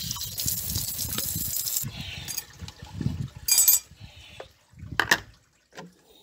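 Water running and splashing as cleaned fish are rinsed in a plastic bucket, cutting off about two seconds in. Then scattered knocks and a brief rattle as the bucket and fish are handled.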